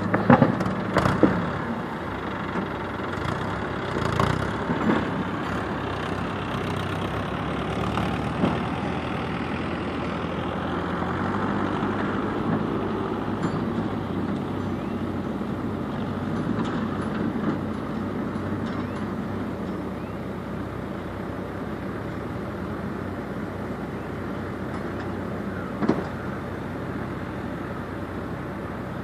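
Diesel engines of a backhoe loader and a farm tractor running, with stones knocking into the tractor's trailer several times in the first few seconds. The tractor then pulls away with the loaded trailer, its engine growing fainter in the last third.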